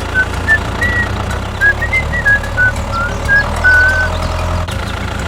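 Steady low hum of a vehicle engine running, with a light tune of short high notes playing over it for the first few seconds.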